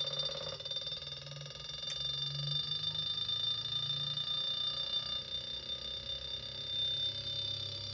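Brushless three-phase washing-machine motor, run by a simple transistor pulse circuit, spinning fast as its supply is turned up to 48 volts: a steady high-pitched whine over a low hum.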